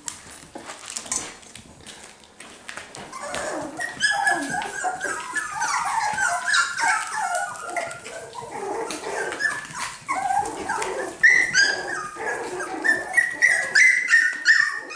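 A litter of 5½-week-old cockapoo puppies yipping and whimpering, many short high-pitched calls in quick succession from about three seconds in, with light clicks before them.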